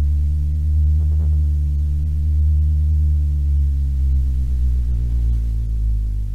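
Loud steady electrical mains hum in the commentary sound system: a low buzz with a ladder of overtones that does not change.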